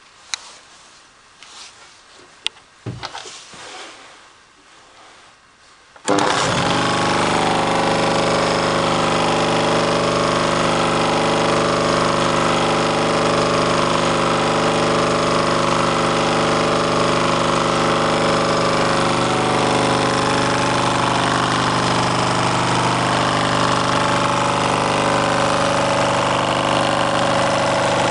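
A few knocks and handling noises, then about six seconds in a two-stroke chainsaw engine starts suddenly and runs at a steady speed.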